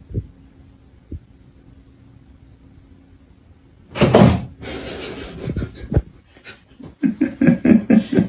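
A sudden loud bang about four seconds in, followed near the end by a quick run of short, rhythmic pulses.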